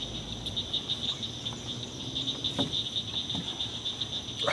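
Crickets chirring in a steady, fast, evenly pulsing high-pitched chorus.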